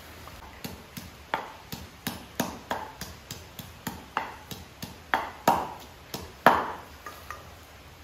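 Chopping strokes of a blade on a board, quick and a little uneven at about three a second, each a sharp knock with a short ring. The strokes start under a second in and stop shortly before the end.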